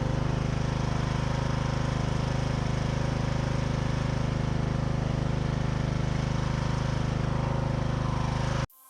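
A small engine idling steadily with an even, rapid pulse, then cutting off abruptly near the end.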